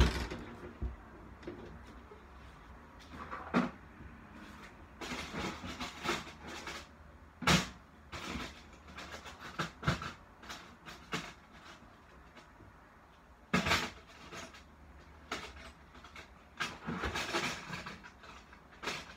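Someone rummaging through belongings while searching for a key: scattered knocks, clicks and rustling, with a few sharper bangs among them and quiet gaps between.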